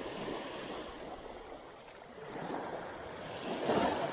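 Small waves washing up on a sandy shore in swells, with a louder rush near the end.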